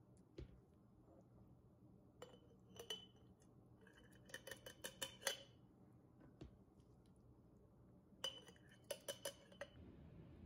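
Metal spoon clinking against the rims of small glass jars as a thick vegetable paste is spooned in: a few scattered light clinks, then two quick runs of taps, about four seconds in and again about eight seconds in.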